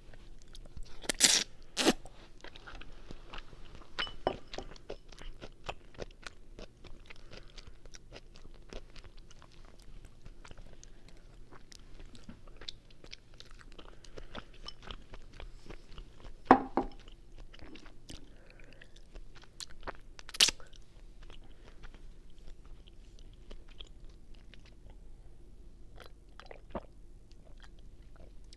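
Chewing and biting of linguine carbonara heard very close to the mouth, a steady run of small wet mouth clicks. A few much louder sharp clicks stand out, two about a second in and two more past the middle.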